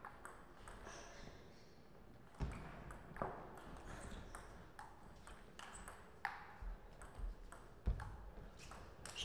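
Table tennis rally: the celluloid-type ball clicking sharply off paddles and table in quick irregular succession, with a few heavier low thuds among the clicks.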